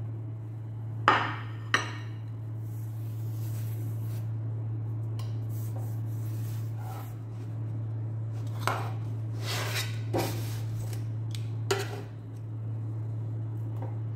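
Kitchen utensils clacking against a plate and a round electric pan. There are two sharp clacks about a second in, then several lighter knocks later as tongs turn a pizza base, all over a steady low hum.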